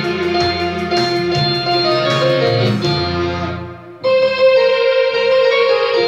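Digital piano played with both hands: a melody over held lower notes. The sound dies away briefly about four seconds in, then a new phrase starts.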